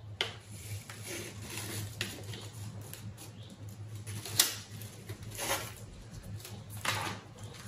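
Rustling and crinkling of pleated gold-foil paper fans being handled and pressed down onto tape, with a sharp crackle about four and a half seconds in.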